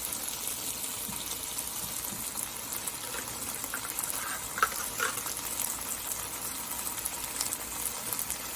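Food sizzling in a wok as a stir-fry of chicken and string beans cooks, a steady hiss, with a couple of light clinks of a utensil against the wok about halfway through.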